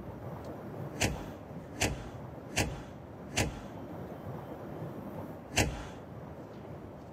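Five sharp taps over a steady hiss. The first four come evenly, a little under a second apart, and the fifth follows after a pause of about two seconds.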